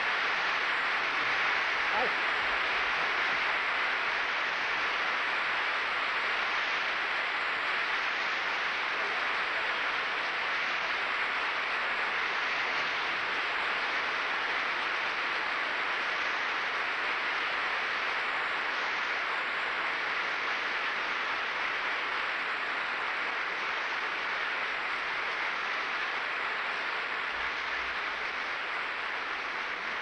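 Lecture-hall audience applauding at length, an even, steady clapping that tapers slightly toward the end.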